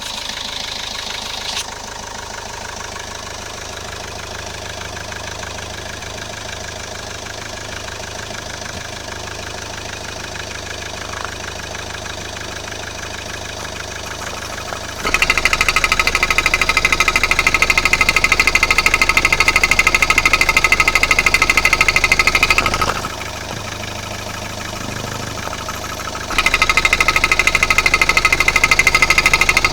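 Toyota Corolla 1.4 D-4D four-cylinder diesel engine running with its filler cap open, making a fast, steady knocking rattle that the owner finds strange. About halfway through the rattle turns much louder and brighter, drops back for a few seconds, then comes back loud near the end.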